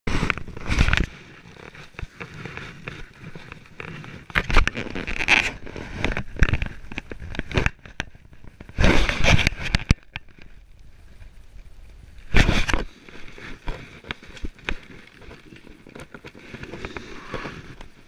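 Handling noise on a GoPro camera held in the hand: irregular bursts of rubbing and scraping against the housing, with scattered knocks and clicks between them.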